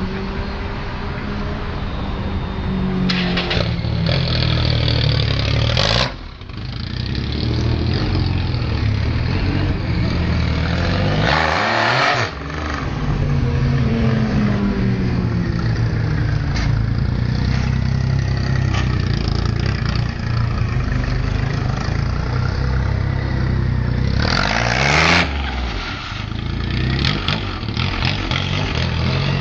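Triumph Rocket III's big three-cylinder engine held at high revs for a burnout, its rear tyre spinning on the pavement. The engine note rises and falls, with a short surge and drop about six, twelve and twenty-five seconds in.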